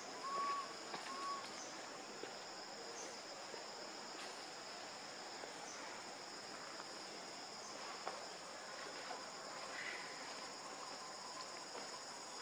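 Steady high-pitched chorus of insects, with faint scattered clicks. Two short whistle-like calls sound in the first second and a half.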